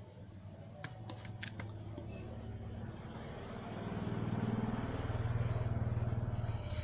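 A low, steady engine-like hum that grows louder from about three and a half seconds in, with a few light clicks near the start.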